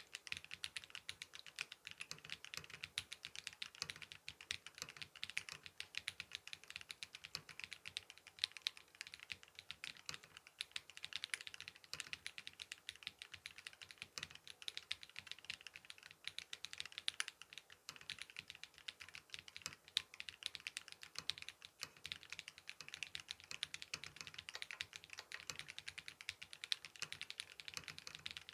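Continuous fast typing on a tenkeyless mechanical keyboard with lubed Holy Panda tactile switches on a carbon fiber plate, with Leopold keycaps: a steady stream of crisp key clacks.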